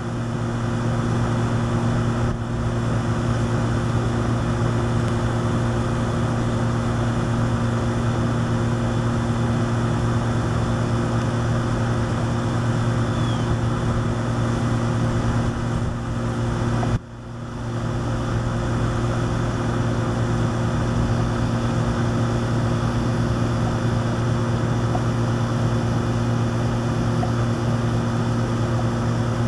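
A steady motor drone with a strong low hum, running evenly and dipping sharply for a moment a little past halfway before coming back.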